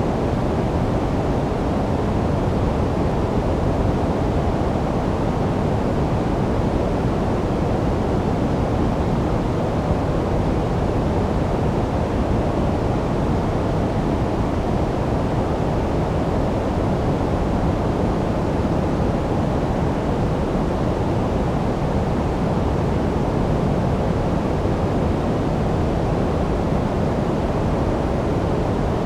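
Steady generated sleep noise, sold as white noise: an even, unbroken rush with no rhythm or events, strongest in the low and middle range with little high hiss.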